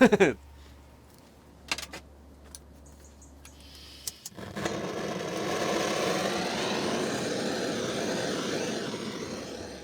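A few faint clicks, then about four seconds in a small workshop machine starts and runs steadily, easing off slightly near the end.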